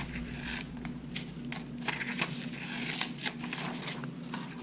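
Sheet of paper rustling and crinkling in the hands, with painter's tape pulling away as the paper template is peeled off a plastic hydrofoil plate. Short crackles come in clusters, busiest in the middle.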